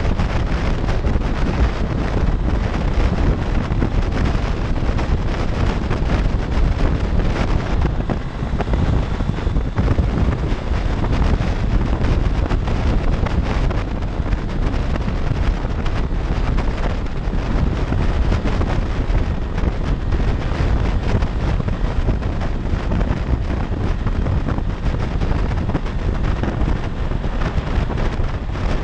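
Steady wind rushing and buffeting over the camera microphone on a motorcycle at freeway speed, with the 2016 Honda CB500X's parallel-twin engine and road noise running underneath.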